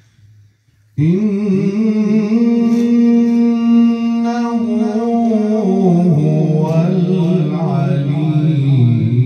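A man reciting the Quran in melodic tajweed style into a microphone, starting about a second in: ornamented, wavering phrases that settle into a long held note, then step down lower near the end.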